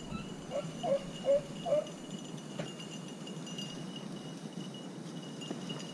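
Beagle giving four short yips in quick succession, beginning about half a second in.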